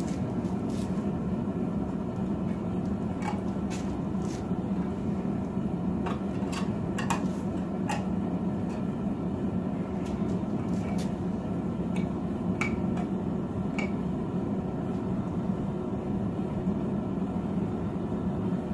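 Propane forge burner running steadily, a low rushing noise, with scattered sharp clicks and crackles over it.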